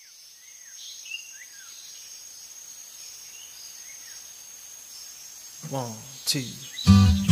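Outdoor nature ambience: a steady high-pitched insect drone with scattered short bird chirps. A brief voice sounds near the end, and strummed guitar music comes in just before the end.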